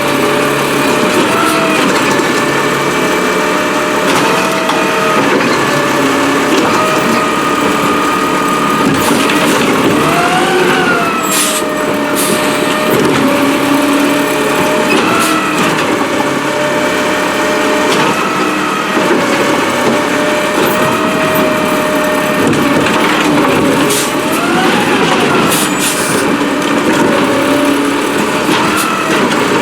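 Peterbilt 320 refuse truck with a New Way Rotopac body running steadily, its engine rising in pitch briefly about three times, with a couple of sharp clanks near the middle.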